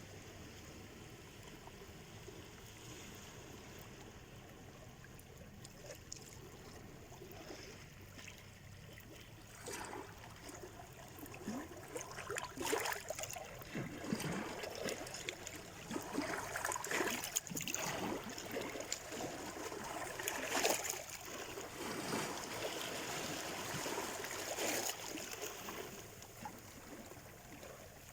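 Sea surf washing and splashing, low and steady at first, then a run of louder irregular splashes from about ten seconds in until near the end.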